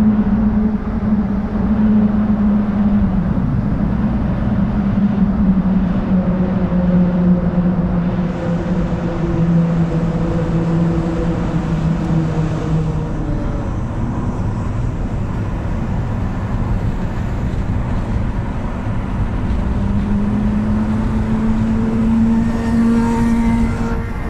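Car road and engine noise heard inside the cabin at motorway speed, a steady rumble with a low engine hum that falls slowly in pitch through the first half and rises again near the end.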